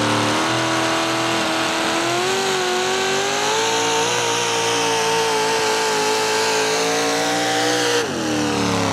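Supercharged engine of a pickup pulling truck running flat out under load, its pitch held high and slowly climbing. About eight seconds in, the revs fall away sharply.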